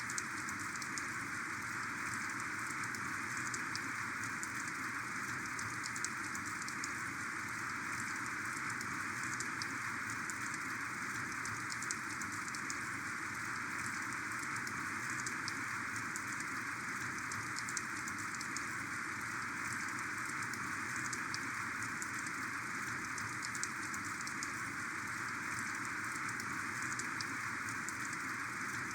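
Heavy rain falling steadily, a dense patter of individual drops over a constant hiss.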